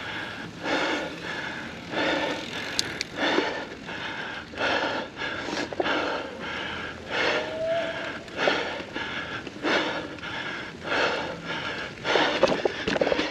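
Mountain biker breathing hard under effort while pedalling, a loud exhale about every second and a quarter. A burst of rattling comes near the end.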